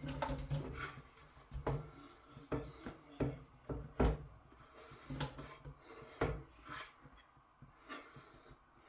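Irregular knocks and light scrapes of a utensil against a wok and chopping board, about one a second, as roughly chopped onions are tipped into the wok.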